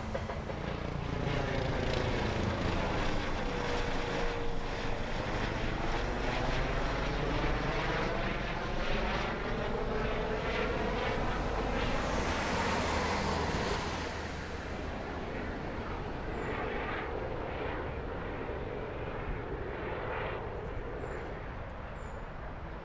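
ADAC rescue helicopter Christoph 25, a light twin-engine helicopter with a shrouded tail rotor, flying overhead. The rotor beat and engine sound sweep in pitch as it passes, then fade after about fourteen seconds as it moves away.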